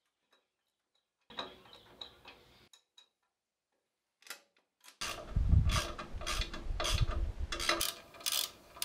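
Ratchet wrench clicking in quick strokes as the nuts holding a brake backplate to the axle casing are tightened, with low knocks from the metal parts being handled. Before that, about half the time, only a few faint clicks.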